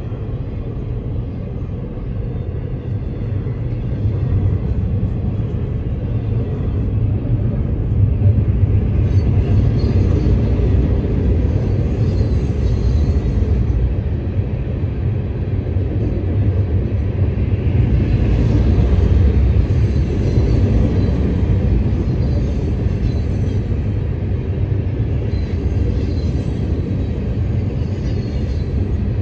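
Freight train passing at a road crossing: a steady low rumble of steel wheels on the rails with the clatter of the cars, growing louder about eight seconds in.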